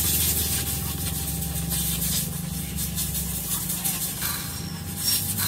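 Ratchet wrench on a long socket extension turning the camshaft bearing cap bolts of a cylinder head, clicking rapidly, over a steady low hum.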